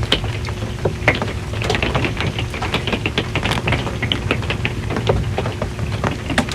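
Rain falling on a metal RV roof: many individual drops tick and tap irregularly on the metal over a low, steady rumble.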